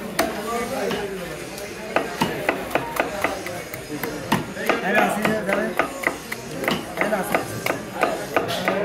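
A large knife hacking at a rohu fish on a wooden chopping block: a few sharp knocks, then from about two seconds in a quick run of sharp knocks, about three or four a second.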